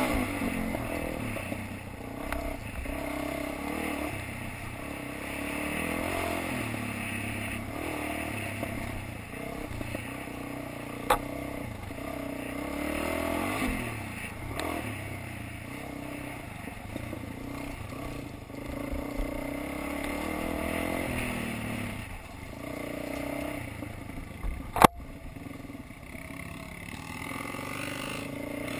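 Dirt bike engine heard from the rider's seat, the revs rising and falling as it is ridden along a rough trail, with rattling from the bike. There is a faint sharp click partway through, and a loud sharp knock near the end.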